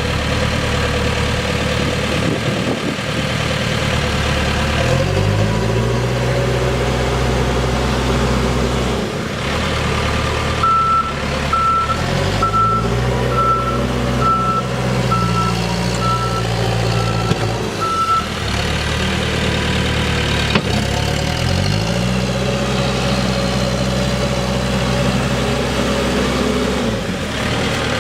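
Case 580N loader backhoe's Tier 3 diesel engine idling and revving up three times, each time climbing, holding for a few seconds, then dropping back to idle. A backup alarm beeps steadily for about seven seconds in the middle, the machine's sign of reversing.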